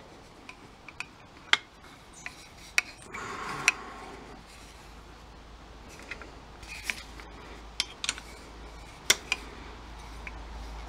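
Sharp metallic clicks and taps of a T-handle socket wrench being fitted to and turned on the cylinder-head nuts of a Honda XL100 single-cylinder engine, several separate clicks a second or more apart, with a short scrape of metal on metal about three seconds in.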